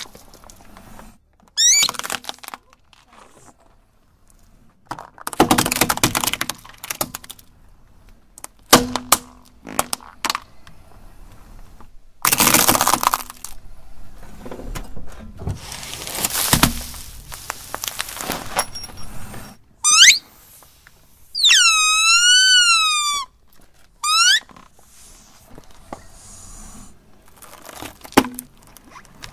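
A car tyre rolling over and crushing a series of small plastic and rubbery objects, heard as separate bursts of cracking, crunching and squishing. About two-thirds of the way through, something under the tyre gives a loud squeal that wavers up and down in pitch for a few seconds.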